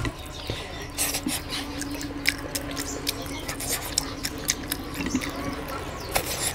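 Wet smacking and chewing of someone eating oily curry and rice: many short, irregular clicks and smacks over a faint steady hum.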